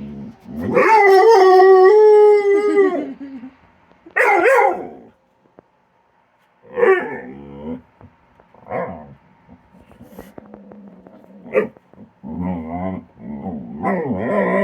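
A dog's play vocalising: a long wavering howl-like whine about a second in, then shorter yips and whines, and low play-growling grumbles near the end.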